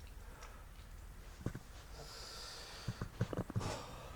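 A person sniffling and breathing through a stuffy nose, with a hissing intake about two seconds in, followed by a few soft clicks and knocks.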